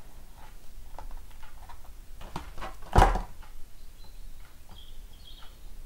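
Light clicks and rubbing from a silicone rubber mould being handled over a plastic tray, with one louder knock about three seconds in.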